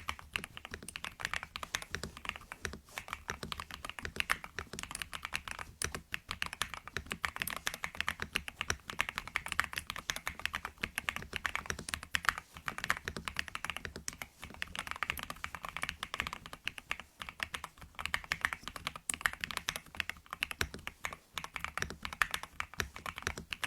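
Mechanical keyboard being typed on continuously: a fast, uneven run of key clacks with brief pauses.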